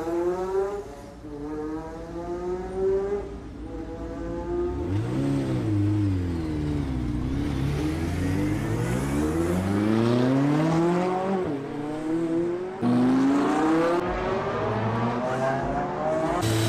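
Performance car engines accelerating hard, each note climbing and then dropping back at the gear changes, heard in several short cuts; in the middle one car's note swings up and down as it goes by.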